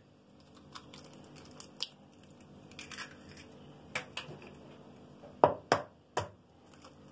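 Egg being cracked: light scattered clicks and crackles of eggshell, then three sharp taps near the end as the next egg is knocked open.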